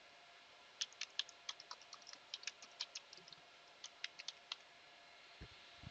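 Computer keyboard typing: a quick, uneven run of key clicks that starts about a second in and stops about three and a half seconds later, as an address is typed into a web browser.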